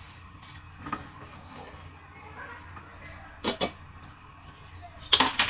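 Short handling noises of a non-stick frying pan and its packaging: small scrapes and rustles, two sharp ones close together about three and a half seconds in, and a louder cluster near the end.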